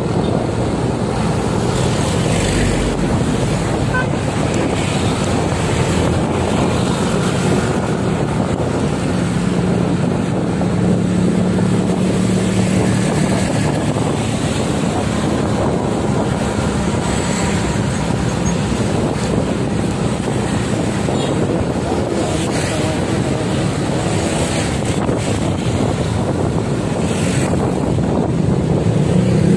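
Wind rushing over the microphone of a moving motorcycle, with the motorcycle's engine running underneath; a steady noise that hardly changes, the engine hum coming up a little near the middle.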